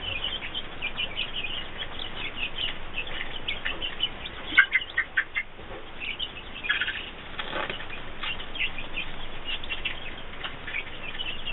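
Newly hatched chicks peeping: many short, high chirps, with a few sharper clicks about halfway through.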